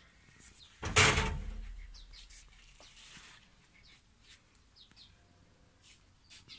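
Small birds chirping in short, repeated calls, with a loud bump about a second in that dies away over about a second.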